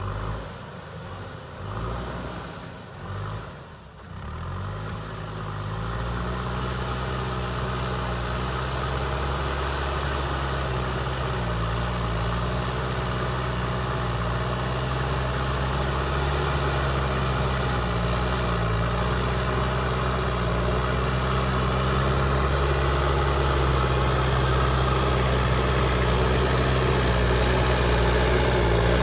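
JCB backhoe loader's diesel engine running at a steady speed. It is quieter and uneven for the first few seconds, then settles into a steady note that grows slowly louder.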